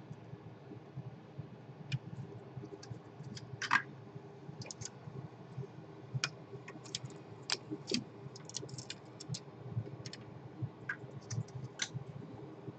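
Scattered light clicks and taps from the PS4 motherboard and small tools being handled on the bench during an HDMI port repair, over a faint steady hum.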